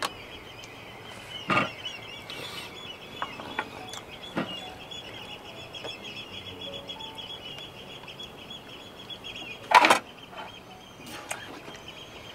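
A steady high chirring, like insects, runs underneath. A plastic baby bottle knocks a few times on a plastic high-chair tray, loudest about ten seconds in.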